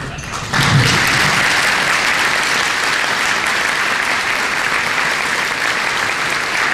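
Audience applauding, breaking out suddenly about half a second in and continuing steadily.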